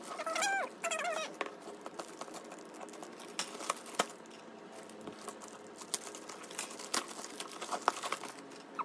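Plastic mailer bag crinkling and crackling in scattered small bursts as a child's fingers pick and pull at it to tear it open. A brief high-pitched child's vocal sound comes near the start.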